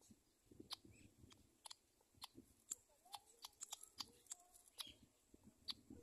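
Faint, irregular clicks and ticks, a few a second, with two short, faint chirps about three and four seconds in.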